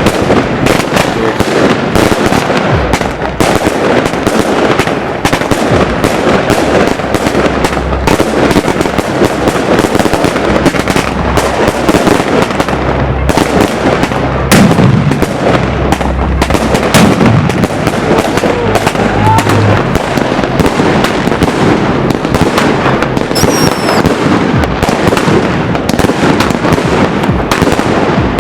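Fireworks going off densely and without a break: rapid, overlapping bangs and crackle, loud throughout, with a short whistle about three-quarters of the way through.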